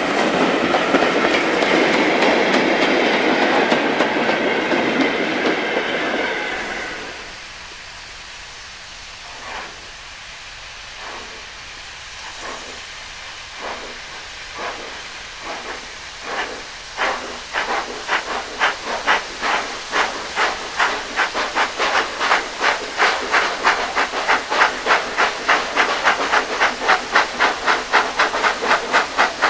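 Steam locomotive letting off steam with a loud hiss that dies away after about seven seconds. It then pulls away: its exhaust beats come about a second apart at first and quicken steadily to about three a second, growing louder.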